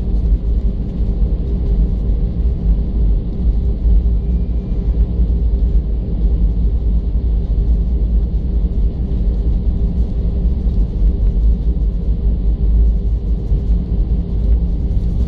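Airbus A320 airliner heard from inside the cabin while rolling on the ground: a steady low rumble from the wheels and airframe, with the steady hum of the jet engines over it.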